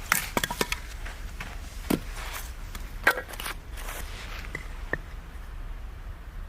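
Irregular knocks, clicks and light scraping of objects being handled: a quick cluster of clicks at the start, a duller knock about two seconds in, a sharp click about three seconds in, and a softer one near five seconds.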